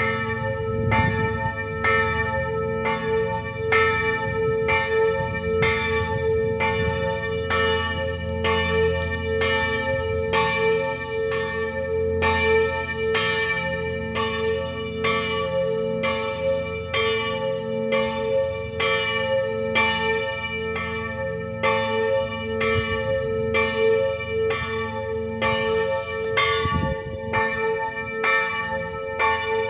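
Church bells ringing, struck in a steady, even rhythm with each stroke's hum ringing on into the next.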